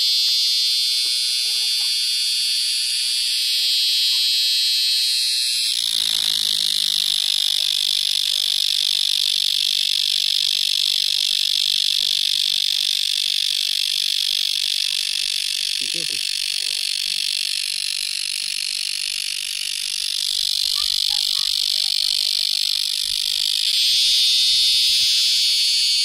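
Cicada calling: a loud, continuous, high-pitched buzz. It changes tone about six seconds in and changes back near the end.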